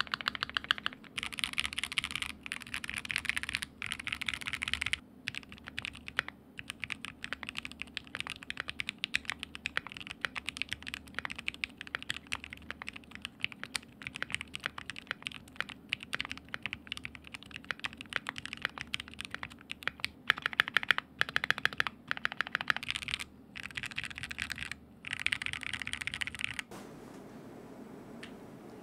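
Typing test on a Keychron Q2 aluminium-case mechanical keyboard fitted with Gateron Ink Black V2 linear switches lubed with Krytox 205 Grade 0. Fast runs of keystrokes with short pauses between them. The typing stops near the end.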